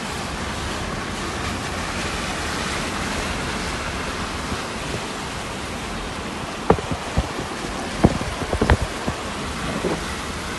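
Floodwater rushing steadily, with a few short sharp knocks in the second half.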